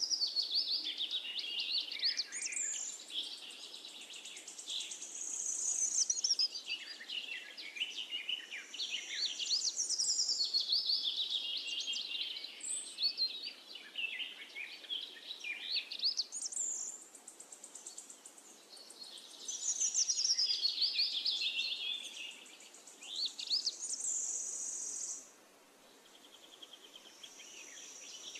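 Birds chirping and singing in fast trills and gliding whistles, in phrases of a few seconds with short pauses between them.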